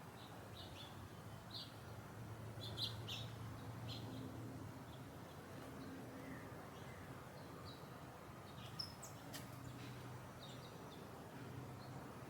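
Small birds chirping in short, scattered high calls, with a couple of sharp ticks near three seconds in and again near nine seconds, over a steady low background hum of garden ambience.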